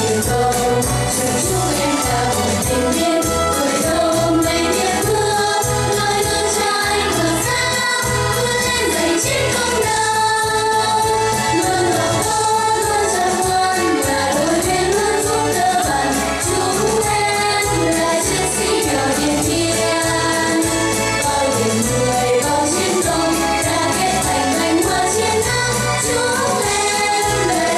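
A children's vocal group singing a Vietnamese song together over instrumental music with a steady beat.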